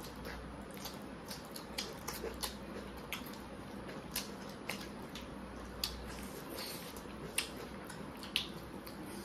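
Close-up eating sounds of two people eating rice and curry by hand: chewing and mouth smacks with many irregular sharp clicks, and fingers mixing food on the plates.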